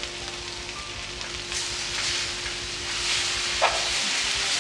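Shredded jackfruit filling sizzling in a frying pan while a spoon stirs it in waves, with a couple of sharp knocks near the end.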